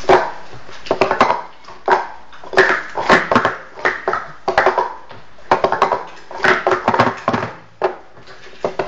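Speed Stacks plastic cups clattering in a fast sport-stacking run, as they are stacked up into pyramids and swept back down on a glass tabletop: clusters of quick clacks and knocks, about one burst every second.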